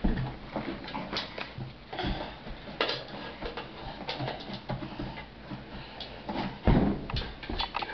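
A toddler climbing onto a small child's chair: scattered light knocks and shuffles of hands, bare feet and chair, then a heavier thump about seven seconds in.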